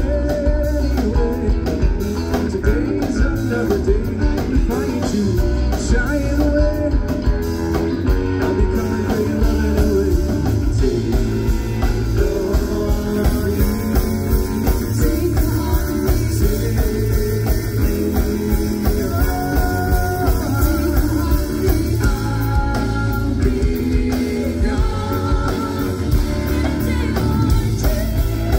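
Live rock band playing a yacht-rock number: electric guitar, bass and drum kit with a steady beat.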